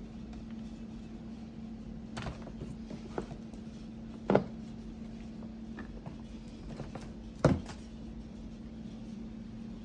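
A steady low hum with a few sharp knocks and thunks of objects being handled, the loudest about four and a half and seven and a half seconds in.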